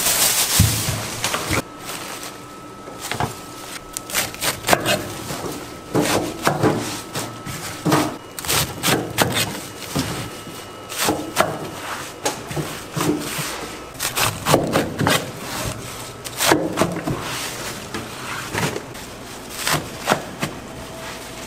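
Kitchen knife cutting bunches of young cabbage greens on a wooden cutting board: irregular knocks of the blade striking the board, starting about two seconds in.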